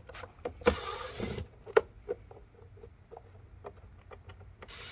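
Cordless drill-driver with a T25 Torx bit backing out the screws of a car's intake cover, running in short bursts: one of about two thirds of a second about a second in, another starting just before the end. Small clicks and taps of the bit and screws come between the bursts.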